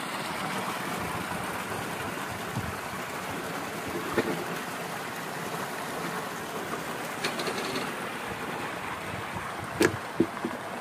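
Water gushing steadily from a solar tubewell's 4-inch delivery pipe and splashing into a concrete tank, the pump running at full flow. A few short knocks cut in, two close together near the end.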